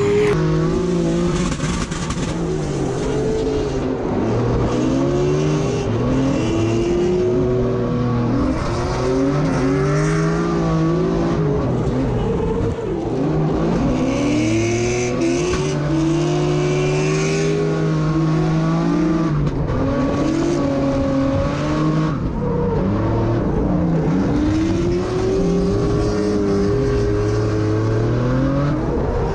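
Drift car's engine heard from inside the cabin, revving up and falling back again and again while the car slides through drifts, with tyre squeal.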